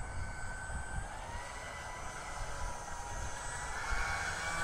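Motor and air propeller of a small 3D-printed model airboat whining as it runs across the water: a steady high tone that rises in pitch about a second in and again near the end, getting louder.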